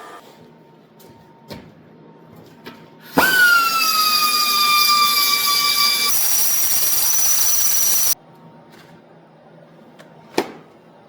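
A power tool cutting into a worn steel bushing: a loud whine that sags slightly in pitch as it bites, turns harsher for a couple of seconds, then stops suddenly. A sharp click follows near the end.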